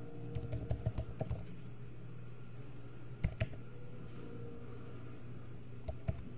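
Typing on a computer keyboard: a quick run of keystrokes in the first second and a half, a couple of keys about three seconds in, and more keystrokes near the end, over a steady low hum.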